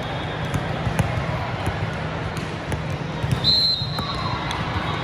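Indoor volleyball play in a large, echoing hall: balls smacking off hands and the floor in repeated sharp hits over a steady hubbub of voices. A short, steady high tone sounds about three and a half seconds in.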